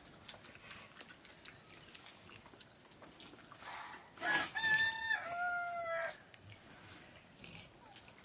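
A rooster crows once about four seconds in: a call under two seconds long that holds one note, then steps down to a lower one. Faint clicks and scrapes of hands eating from steel plates come and go around it.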